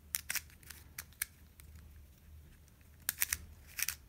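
Small plastic mini 3x3x3 picture cube clicking as its layers are turned by hand. There is a quick run of clicks at the start, a quiet stretch, then another cluster about three seconds in.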